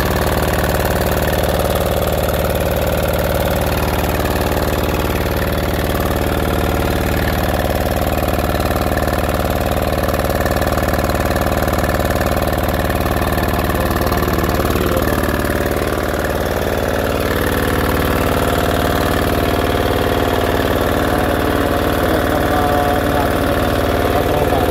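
Small air-cooled single-cylinder diesel engine of a pressure washer running steadily on test after repair; its note shifts slightly about sixteen seconds in.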